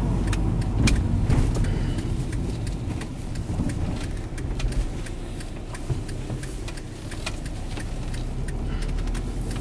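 Steady low road and engine rumble heard inside the cabin of a moving car, with scattered small clicks and rattles.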